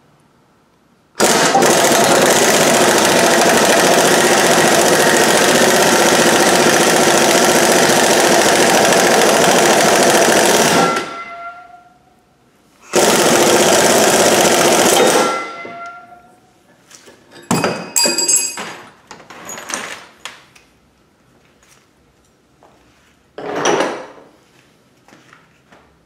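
Impact wrench hammering in two long runs, the second much shorter, driving a bearing splitter and puller to press a bearing off a transmission shaft. A few short metal clanks and clicks follow as the parts shift.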